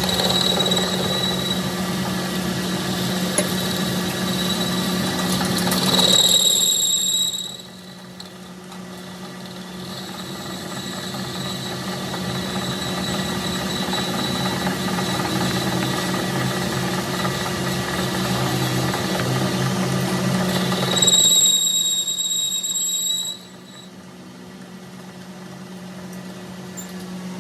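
A metalworking machine or power tool running steadily with a hum and a high squeal. Twice, about six seconds in and again near twenty-one seconds, the squeal swells and the sound then drops abruptly before building back up slowly.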